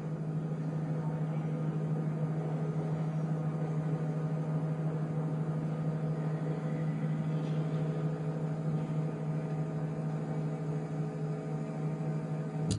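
Steady low electrical hum with evenly spaced overtones: the ambient drone of a space-station interior in a film soundtrack. It cuts off suddenly with a click at the very end.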